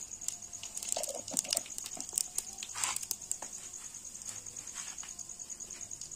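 Cumin seeds sputtering and crackling in hot oil with whole spices, a tadka (tempering) in which the oil is hot enough to make the seeds pop: a run of sharp pops in the first few seconds that then thins out. Crickets chirp steadily in the background.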